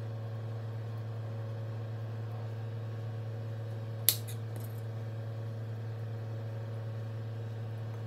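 A steady low hum throughout, with one sharp click about four seconds in and a few faint clicks just after: a metal skewer knocking against a ceramic plate while shrimp are threaded onto skewers.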